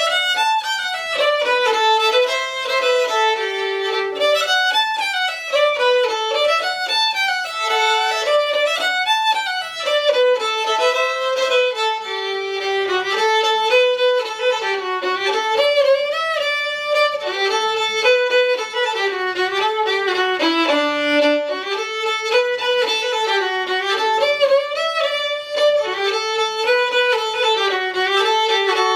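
Solo fiddle playing an old-time fiddle tune: a quick, continuous bowed melody with no accompaniment.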